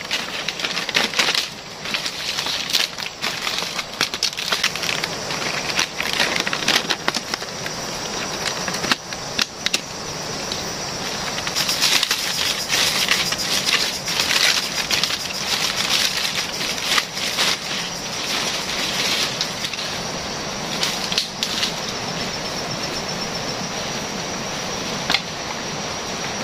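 Sago palm fronds rustling and crackling as they are handled and laid in place, with many irregular crisp snaps of the leaves, busiest about halfway through.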